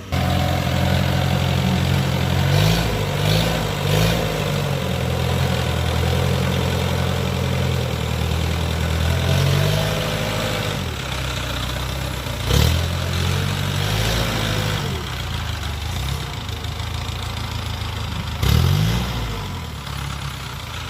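The diesel engine of a tracked rice-field machine running, its speed dipping and rising several times. There are two sharp jolts, one past the middle and one near the end.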